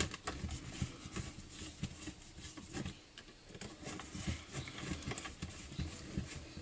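Long screwdriver turning the carburetor mounting bolts on an Echo SRM-22 GES trimmer engine while the engine is handled on the bench: soft, irregular clicks and light scrapes of metal and plastic, a little louder at the very start.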